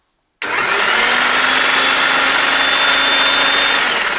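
Bosch GSH 16-30 electric demolition hammer switched on with a sudden start about half a second in, its motor running loud and steady with a high whine. Near the end it is switched off and the whine falls as the motor winds down.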